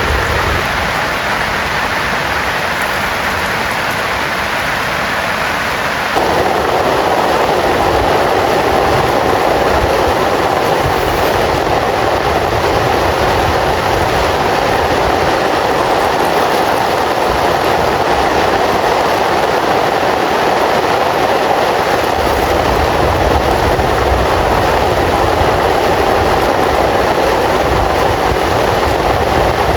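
Heavy rain falling as a loud, steady hiss that abruptly turns louder and fuller about six seconds in, with a low rumble joining it in the last third.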